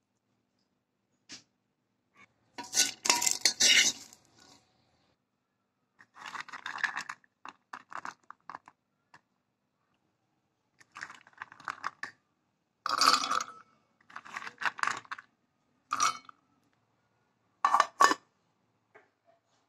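Nuts and dates being handled against a plate and a grinder jar: short, irregular bursts of clinking and scraping, with a couple of sharp clinks near the end.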